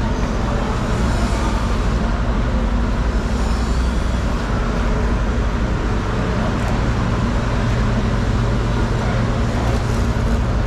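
Steady low mechanical drone with a constant hum, as of an engine or machinery running without let-up.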